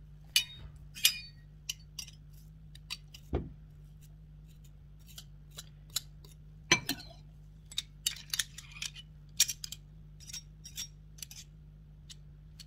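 Stainless steel garlic press crushing garlic cloves: a string of sharp metal clicks and clinks as the handles are worked and a small knife taps against the press, with two duller knocks, about a third of the way in and just past halfway.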